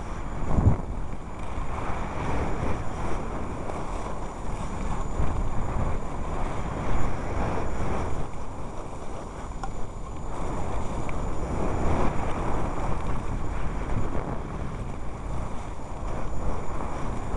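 Wind buffeting the microphone: a steady noise, heaviest at the low end, swelling and easing in gusts.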